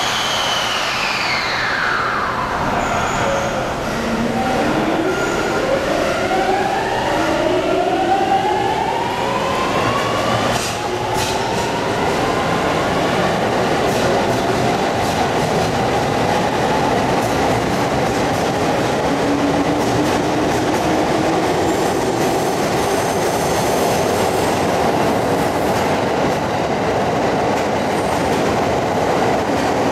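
209 series 500-subseries train's Mitsubishi GTO-VVVF inverter whining as the train pulls away: a tone falling over the first few seconds, then several tones rising together as it accelerates. About ten seconds in, this gives way to steady running noise of motors and wheels.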